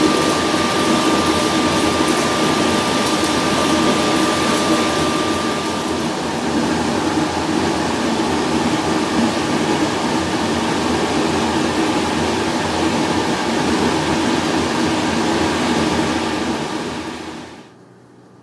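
Loud, steady drone of crematory machinery, with a thin high whine over it for the first six seconds or so. It drops away suddenly near the end, leaving a quiet room tone.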